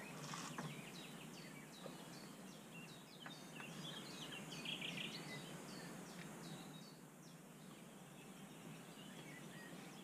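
Songbirds chirping in the dawn chorus: many short, quick, falling chirps over a faint steady background hiss.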